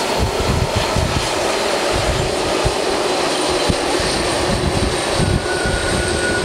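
A McDonnell Douglas MD-11's three General Electric CF6 turbofan engines running at taxi thrust as the jet turns onto the runway: a steady jet roar with a thin high whine, and a second steady tone joining about five seconds in. Wind gusts buffet the microphone underneath.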